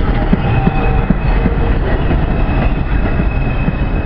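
R142 subway train running alongside the platform: a loud, steady rumble of steel wheels on rail with scattered rail-joint clicks and a thin, high steady tone over it.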